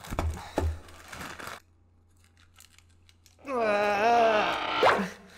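A thin plastic bag being pierced and torn open with a metal spoon: crinkling, tearing and clicking for the first second and a half. Later a drawn-out, wavering, wordless vocal sound from a person lasts about a second and a half, followed by a single click.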